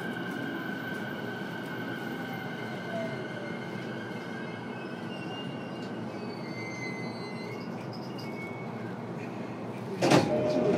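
E233-7000 series electric train heard from inside a motor car: steady running noise with a high whine from its Mitsubishi IGBT VVFF inverter drive, the whine's tones shifting about halfway through as the train comes into a station. A loud sudden noise starts about ten seconds in.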